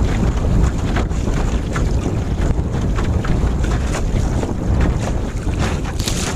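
Strong wind buffeting a microphone fixed to the gunwale of a sailboat under way, with a steady low rumble, and water rushing and splashing along the hull in short hissing bursts, the strongest near the end.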